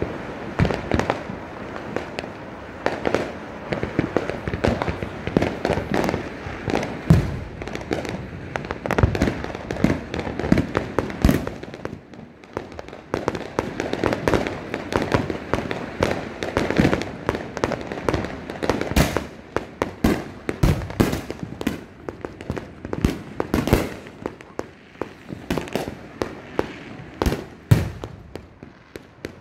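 Fireworks and firecrackers going off all around: many sharp bangs and pops overlapping with no pause.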